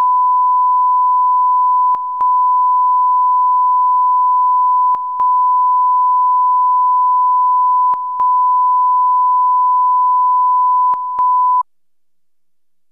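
A steady, pure electronic test tone, the kind of reference tone carried on archive film and tape transfers. It breaks off briefly with a click about every three seconds, then cuts off suddenly near the end.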